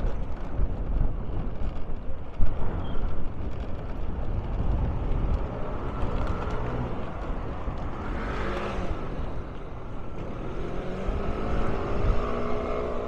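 Road and engine noise of a vehicle being driven through town streets, with a sharp knock about two and a half seconds in. A brief swell of noise comes about eight seconds in, and a rising engine note follows near the end.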